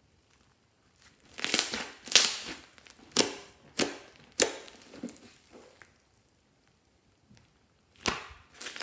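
Close handling noise: a run of short crinkling, crunching sounds, about six of them, then a pause and two more near the end.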